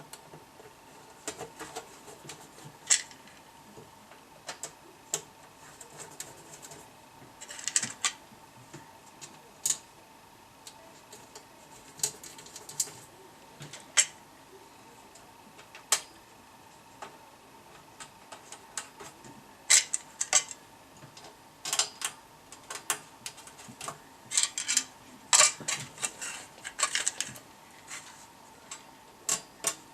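Irregular sharp clicks and light clatter of small parts and tools being handled on a workbench, in clusters with short gaps, over a faint steady whine.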